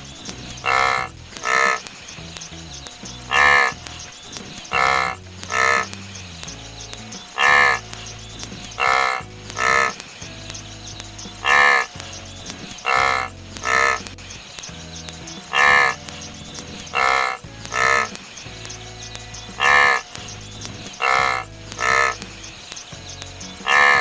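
An animal calling over and over in a regular pattern: one call followed by two shorter ones, repeating about every four seconds.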